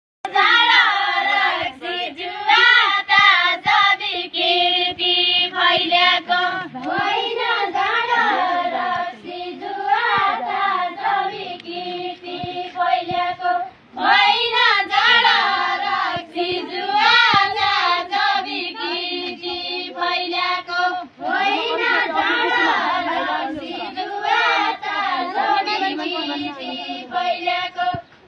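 A group of women singing a Deuda folk song together in high voices, line after line, with two short pauses between verses.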